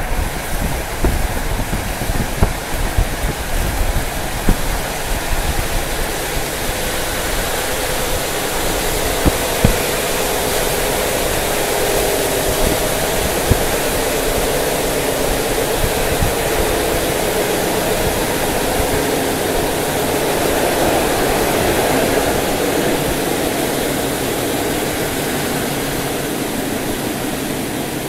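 Passenger train running at speed, heard at an open carriage window: a steady rush of wind and wheel-on-rail noise. Sharp clicks of the wheels crossing rail joints come through in roughly the first ten seconds, and after that the noise settles into a smoother, steadier hum.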